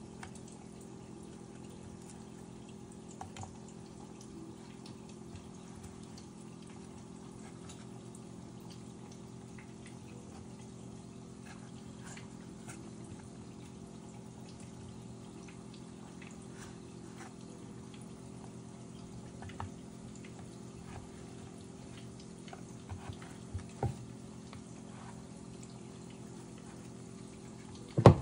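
Steady low hum, with scattered faint clicks and taps as pieces of set peanut butter fudge are snapped off a scored slab on a wooden board. One loud knock comes at the very end.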